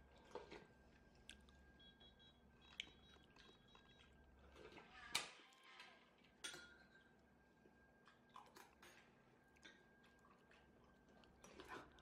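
Near silence: room tone with a faint steady hum and scattered small clicks and ticks, the sharpest about five seconds in.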